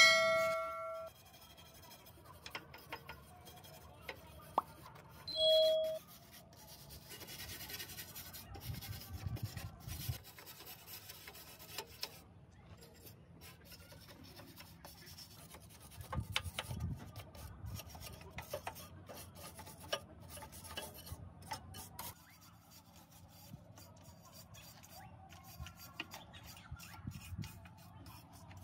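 Intermittent light scraping, rubbing and small clicks of hand work on the parts of an old electric motorcycle being taken apart and cleaned, coming in short busy spells. A short electronic chime sounds at the start and again about five seconds in.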